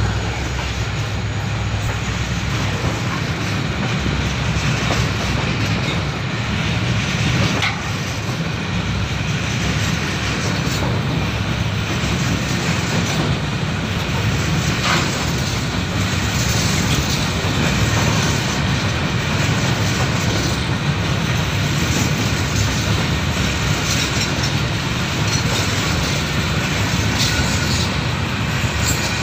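Freight train wagons rolling past: a steady rumble of steel wheels on the rails with clatter, and a few sharp clicks along the way.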